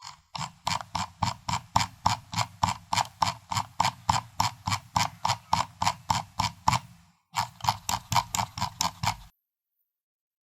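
Computer mouse scroll wheel being rolled, its notches clicking steadily about five times a second. The clicking breaks off briefly a little past seven seconds in, resumes for about two seconds, then stops.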